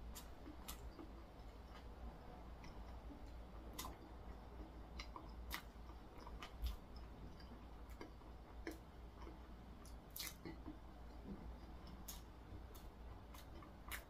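Quiet chewing of food with scattered light clicks, as of cutlery against a plate.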